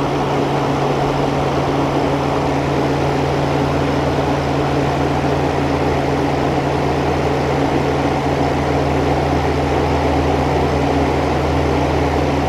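1988 Sears Kenmore 6000 BTU window air conditioner running in cooling mode, heard from its outdoor side: a steady compressor hum with a low tone under the rush of the condenser fan blowing out heat.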